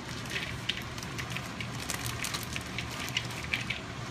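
Plastic bag of shredded carrots crinkling and crackling as it is shaken out into a mixing bowl, in many small irregular crackles.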